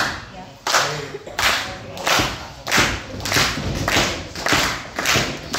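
Rhythmic clapping in unison, about ten sharp claps at a little under two a second, echoing in a large hall.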